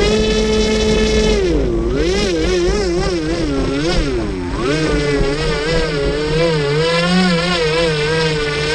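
Electric motor and propeller of a scratch-built RC airboat running on a 4S battery setup, a high whine that holds steady at first, then dips and rises in pitch several times as the throttle changes.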